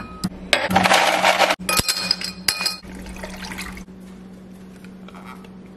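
A drinking glass clinks as it is taken down, then ice clatters into it with a loud rush and ringing clinks, followed by a softer rush of water filling the glass that stops about two-thirds of the way through. A steady low hum runs underneath.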